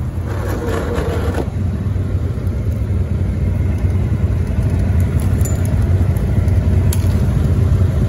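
Honda Recon ATV's single-cylinder four-stroke engine running with a steady low drone that grows slightly louder.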